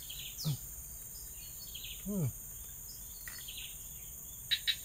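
Forest ambience: a steady high insect drone with birds repeating short falling notes. Two lower falling calls come about half a second and two seconds in, and a few sharp clicks come near the end.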